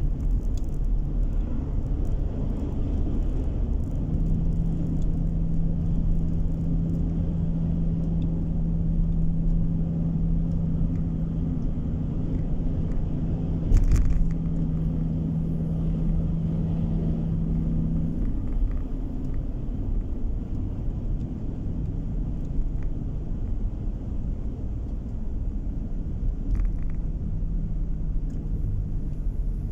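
Steady low road rumble of a car's tyres and engine, heard from inside the cabin while driving. A steady low hum runs through the middle stretch and fades out about two-thirds of the way through, and there is a single sharp knock about halfway through.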